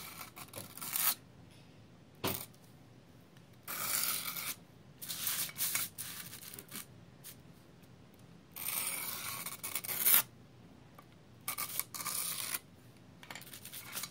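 Pencil scratching on the paper back of a sheet of sandpaper as it traces around a round drill sanding pad. It comes in several bursts of about a second each with short pauses, and there is one sharp click about two seconds in.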